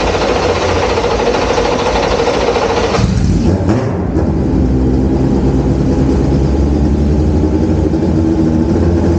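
Alpine LMP2 prototype race car's engine in the garage: a loud, even whirring for about three seconds, then the sound changes to a steady, lumpy engine idle.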